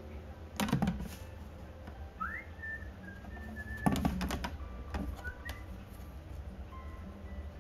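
Light wooden knocks and taps as a curved wooden caul is set down on a rosewood guitar back and shifted into place by hand, one cluster about a second in and a louder one about four seconds in. Thin whistle-like notes, one sliding upward, sound over a steady low hum.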